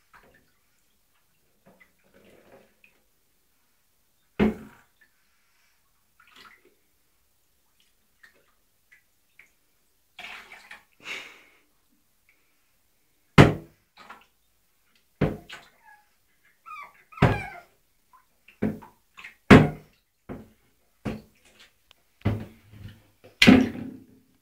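Water splashing and sloshing in a small bath while a pug puppy is washed: a string of separate sharp splashes and knocks, a few scattered at first, then one every second or so in the second half.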